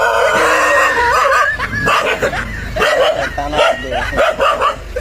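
A dog giving one long harsh call, then a rapid string of short yelping barks from about a second and a half in.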